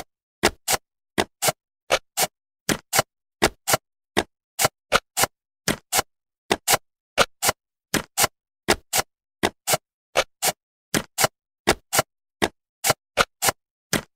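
Jigsaw-puzzle sound effect: pieces clicking into place one after another, a short sharp click about three times a second with silence between.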